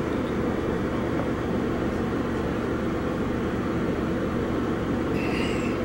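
Steady low hum and rumble inside an Amtrak passenger car, from the train and its air conditioning running.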